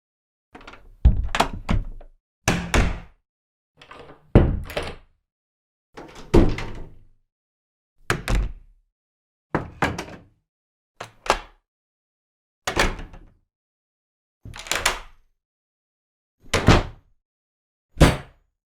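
A series of different doors being closed one after another, about eleven in all, each a short thud or slam, some led by the click of a latch, with brief silences between them.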